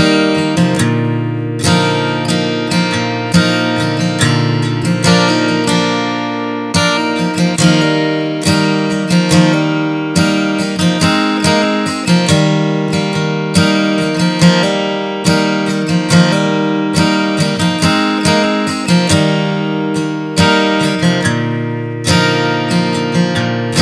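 Background music: an acoustic guitar strumming chords in a steady, even rhythm.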